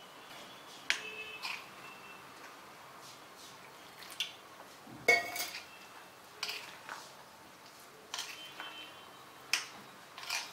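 Metal spoon clinking and scraping against a glass bowl while stirring cauliflower florets into a thick gram-flour and cornflour batter. The clinks come irregularly, about once a second, some with a short glassy ring, the loudest about five seconds in.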